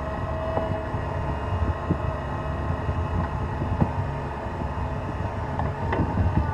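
Caterpillar 236B skid steer loader's diesel engine running steadily, with a few sharp knocks and clunks scattered through.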